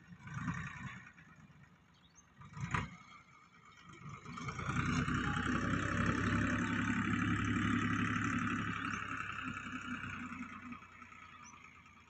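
Farm tractor's diesel engine running steadily under load while ploughing a dry field with a tine cultivator. It grows louder about four seconds in and fades near the end as it passes. A single sharp knock comes about three seconds in.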